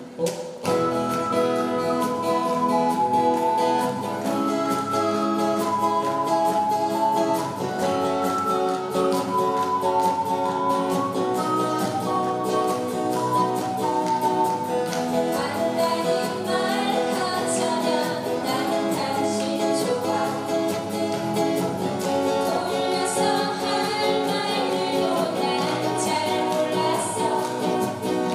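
Live acoustic band: an ocarina plays the melody over strummed acoustic guitars, electric bass and djembe. About halfway through, voices begin singing.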